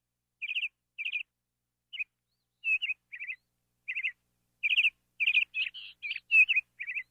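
A bird chirping: about a dozen short chirps with pauses between them, coming closer together in the second half.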